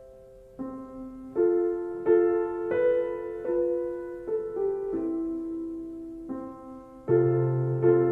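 Slow piano music: soft notes and chords struck one after another, each fading away, with a deep bass note entering near the end.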